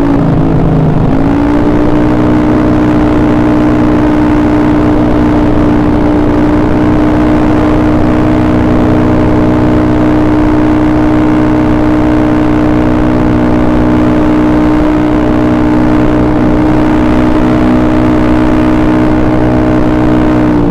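Single-cylinder engine of a freshly rebuilt Honda BeAT carburettor scooter running at a steady, fairly high speed, with a brief dip in revs about half a second in before it settles again.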